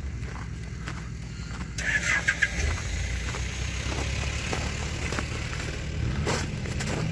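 Off-road 4x4 vehicle's engine running steadily at low revs, with a short noisy scrape about two seconds in.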